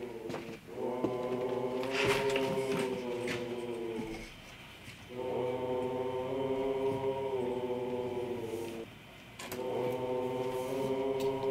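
A choir of voices chanting long held notes in phrases a few seconds long, breaking off briefly twice, about four and nine seconds in.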